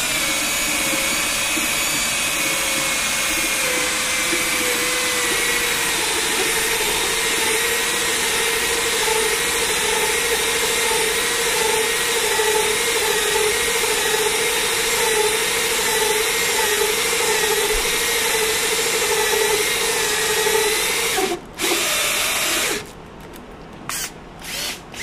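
Cordless drill with a 7/8-inch bit running steadily as it bores out a red polyurethane sway bar bushing to enlarge its hole; the whine drops a little in pitch over the first few seconds as the bit bites in. It stops about 21 seconds in, runs again for a second or so, then gives a few short bursts near the end.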